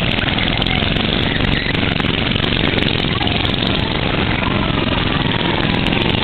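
Small go-kart engines running steadily as a line of karts drives past.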